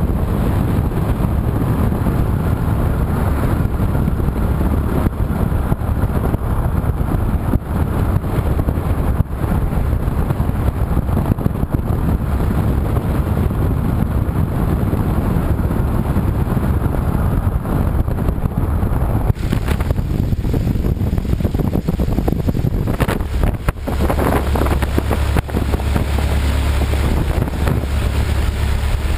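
Lycoming O-290 four-cylinder air-cooled engine of a Stolp SA-900 V-Star biplane running steadily on a ground run, with propeller wash buffeting the microphone. The sound shifts about two-thirds of the way through, and the low drone is stronger over the last few seconds.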